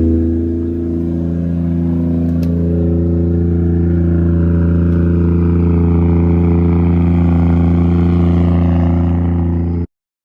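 Toyota JZX100 Mark II's straight-six idling through a newly fitted Tomei titanium exhaust, a steady, very loud drone. The pitch shifts slightly in the first second, then holds until the sound cuts off suddenly near the end.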